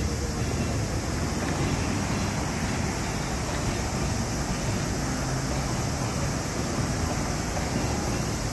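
Steady road traffic noise from cars passing along a wide multi-lane city road, an even rushing hum with no clear tones.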